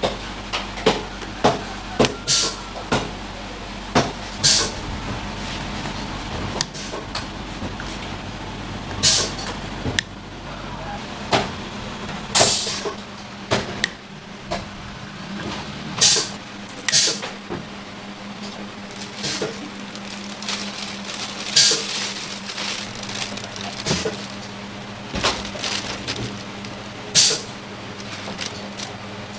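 Irregular sharp clacks and scrapes of hand work at a food stall, one every second or two, over a steady low hum.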